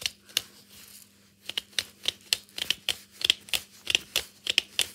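A pepper mill being twisted over the steak: sharp, crunching clicks as the peppercorns are cracked. Two single clicks come at the start, then from about a second and a half in a fast, uneven run of about five or six clicks a second.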